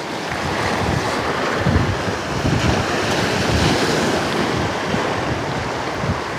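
Sea waves washing and wind buffeting the microphone, a steady rush with gusts swelling and easing in the low end.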